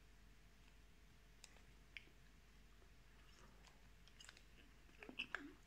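Near silence broken by a few faint clicks of a plastic snack wrapper being handled, then a short cluster of mouth and chewing sounds near the end as a piece of spicy tofu snack is eaten.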